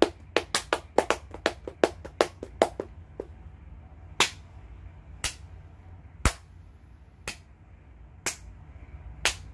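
Hands slapping as cupped-hand popping is attempted, with the pops mostly failing to come off. The sharp slaps come in a quick run over the first three seconds, then singly about once a second.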